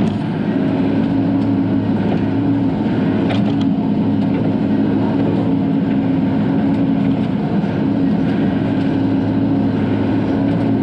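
Bobcat E42 mini excavator's diesel engine running at a steady pitch, heard from inside the cab while it digs, with a few faint knocks a few seconds in.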